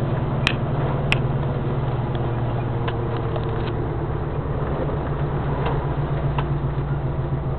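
Van's engine running with a steady low drone, heard from inside the cab while driving, with two sharp clicks about half a second and a second in.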